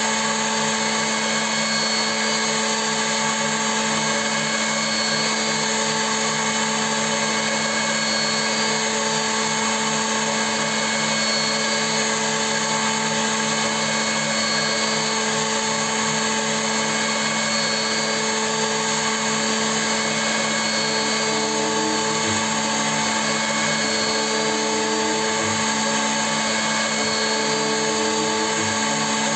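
CNC milling machine running steadily, its spindle and drives giving a constant whine made of several steady tones, with small pitch wavers in the lower part toward the end.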